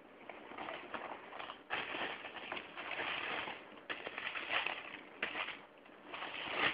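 Tissue paper and a cardboard shoebox rustling and crinkling in irregular bursts as a new pair of trainers is handled and unwrapped.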